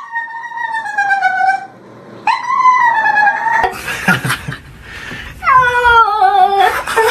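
A dog howling and whining, three long high cries that waver and fall in pitch: the protest of a dog that hates being bathed. Between the second and third cry there is a rough rushing noise.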